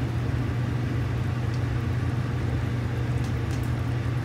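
Pot of broth at a rolling boil on a gas stove, with a steady low hum and rumble.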